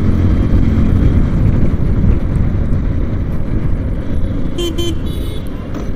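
Wind buffeting the microphone and low road and engine rumble from a motorcycle riding through city traffic. A vehicle horn toots briefly near the end.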